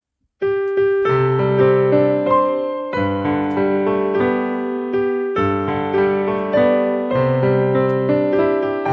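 Piano music, a gentle tune of struck chords and melody notes, starting about half a second in.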